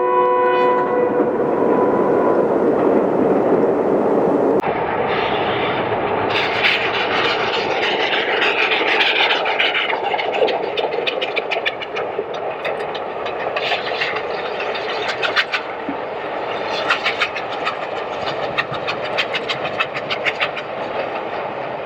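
Steam locomotive at work. A whistle chord dies away in the first second, then a steady rushing sound; after an abrupt cut, a long run of exhaust beats and rail clatter follows.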